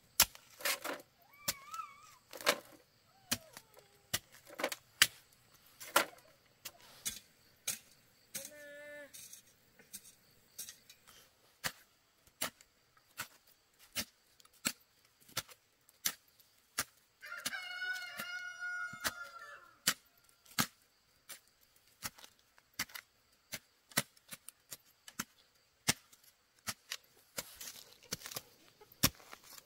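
Sharp chopping strikes of a blade cutting bamboo, irregular at about one a second. A rooster crows once, about seventeen seconds in, in a call lasting some three seconds.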